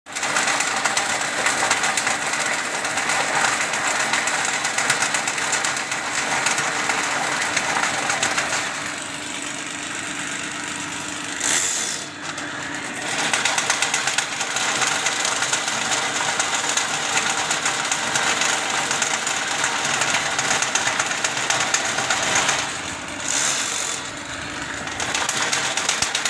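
Ridgid drain-cleaning machine running, spinning its spiral steel cable through a drain pipe with a steady mechanical clatter. The noise drops briefly about halfway through and again near the end.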